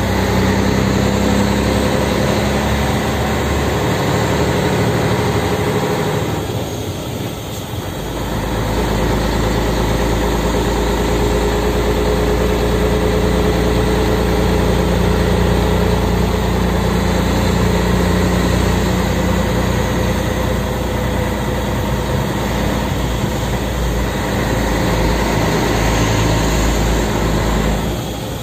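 Scania 113M 320's straight-six diesel running under a heavy load, heard from inside the cab. It eases off briefly about seven seconds in, then pulls strongly again with a deeper rumble.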